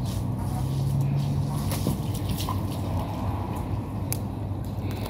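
Water dripping and squishing from a soaked carpet as it is rolled up on stone paving.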